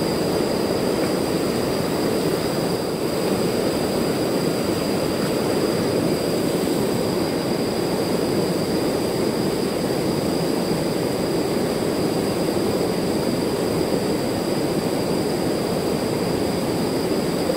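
Fast-flowing river water rushing over rocks: a steady, even rush that doesn't change, with two thin steady high-pitched tones above it.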